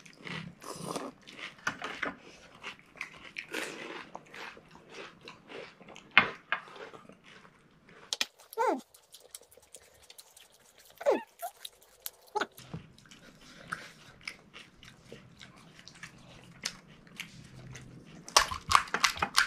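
People eating pani puri up close: the crisp fried semolina shells cracking and crunching, with wet chewing, in many short irregular crackles that bunch up near the end. A couple of brief vocal sounds rise out of it about halfway through.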